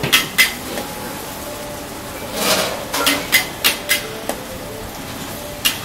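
Metal spatula clanking and scraping against a wok while thick yellow noodles are stir-fried: sharp metallic knocks, about eight in all, two near the start, a quick run in the middle and one near the end, with a scraping swish about two and a half seconds in.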